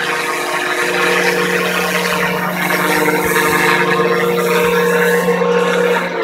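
Electric motor and rotors of a scale RC Eurocopter EC145 model helicopter running under power, a steady whirring hum with a few held tones over rotor wash. The steady tone breaks off at the very end as the landed model is throttled down.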